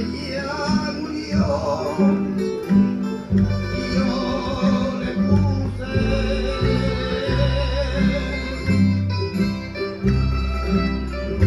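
Canarian folk music for a traditional dance: strummed guitars and other plucked strings keep up a steady rhythm with a bass line, under a singing voice holding long, wavering notes.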